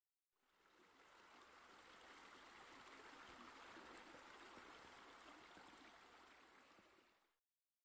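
Faint flowing, trickling water of a cascading fountain's spillways, an even rushing that fades in just after the start and fades out shortly before the end.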